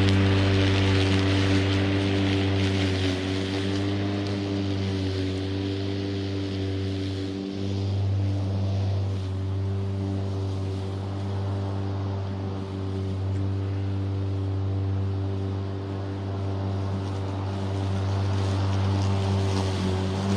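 Stiga Twinclip 950e V 48-volt battery lawnmower running with its blades spinning: a steady electric motor hum with an airy whoosh over it, dipping briefly once partway through.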